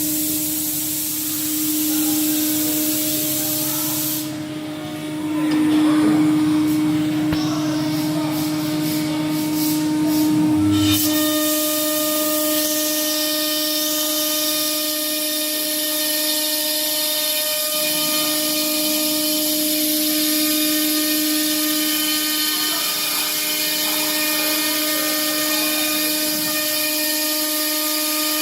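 Spindle of a 1325 CNC router cutting a wooden door panel: a steady whine held throughout, its tone changing about eleven seconds in as further pitched lines join it.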